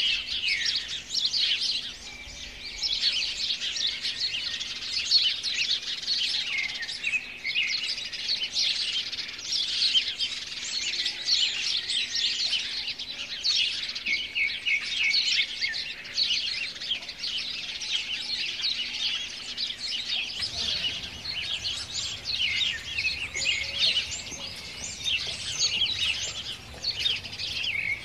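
Many small birds chirping and twittering in a dense, continuous chorus of quick high notes and trills.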